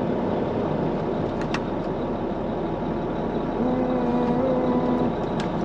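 Truck engine running steadily. A steady hum joins it for about a second and a half, partway through, with a few light clicks.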